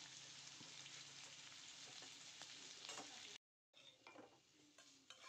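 Pork and green chillies sizzling in a wok as they are stirred with a spatula, a steady hiss with scattered scrapes and clicks. After a cut about three and a half seconds in, fainter clinks and scrapes as the stir-fry is spooned onto a plate.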